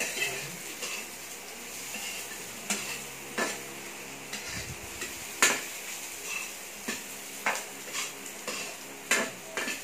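Metal utensil stirring sliced hotdogs in an aluminium wok, with irregular scrapes and knocks against the pan, the loudest a little past halfway, over the light sizzle of the frying.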